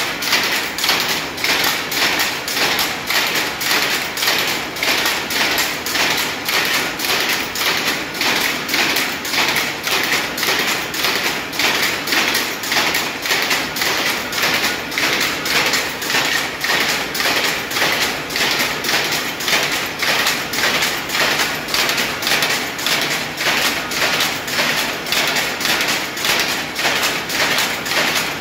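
Shuttle power loom weaving patterned silk saree fabric, clattering in a steady, even rhythm of about two beats a second as the shuttle is thrown back and forth and the sley beats up each pick.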